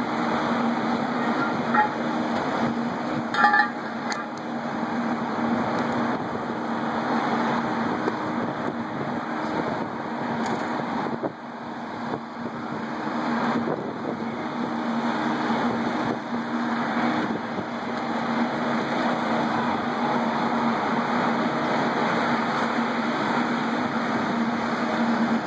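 Fire engine running steadily while it pumps water to a hose line, a constant low engine hum under a rushing hiss. Two short sharp sounds stand out about two and three and a half seconds in.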